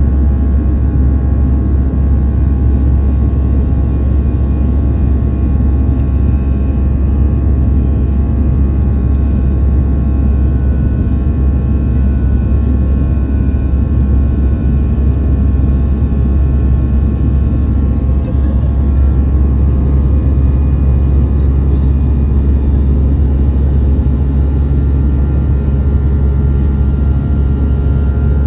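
Airbus A320 jet engines heard from inside the passenger cabin: a steady loud rumble with several steady whining tones above it.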